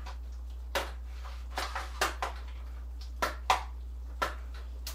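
A metal spoon clinking and scraping against a skillet and a metal baking pan while sauce is spooned into the pan: about eight uneven clinks, over a steady low hum.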